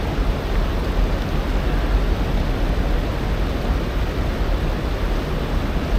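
Steady rush of river white water tumbling over rocks below a dam: a loud, even noise that doesn't break.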